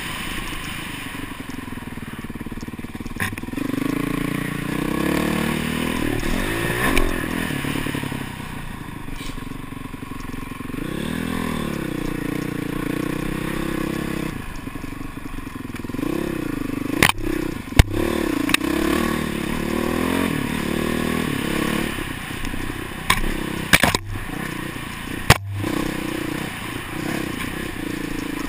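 Dirt bike engine running under way, heard from a helmet-mounted camera, its pitch rising and falling as the throttle opens and closes. Several sharp knocks and clatter from the bike over the trail in the second half.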